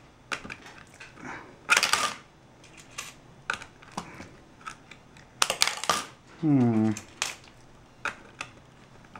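Loose coins clinking and clattering in scattered clicks as a hand picks through a pile of change, with a denser run of clinks a little past halfway. A short falling hum of a man's voice follows that run.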